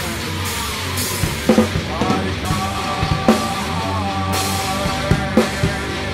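Doom metal music: a drum kit with heavy strikes and cymbal crashes under slow, held melodic notes.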